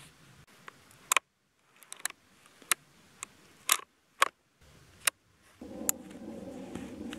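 A series of sharp metallic clicks and snaps as a bolt-action rifle's bolt and action are handled. Near the end a steady rustling sets in as a camouflage backpack's straps and buckles are worked, with another click.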